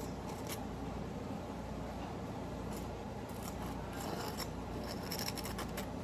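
Scattered short scrapes and clicks of hands and utensils working at the kitchen table, over a steady low hum.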